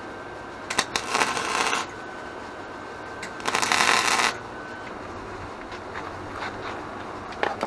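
MIG welder arc crackling and sizzling on the steel go-kart frame tubing in two short welds, each about a second long, the second starting about three seconds in.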